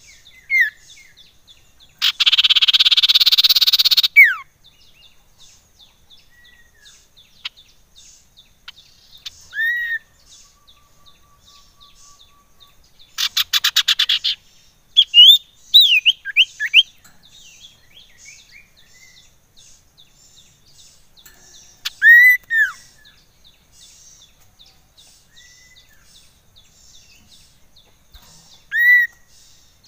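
Common iora calling: short arched whistled notes, a loud harsh churr lasting about two seconds near the start, and a fast dry rattle midway, with a faint high chirping in the background throughout.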